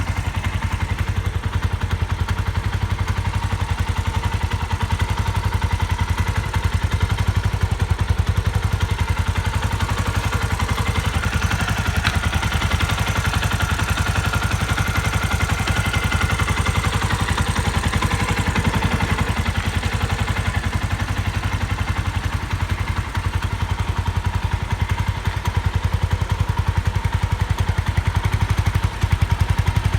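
Suzuki Grasstracker Big Boy's air-cooled single-cylinder four-stroke engine running steadily at idle, with a clattery, even beat and no abnormal engine noise.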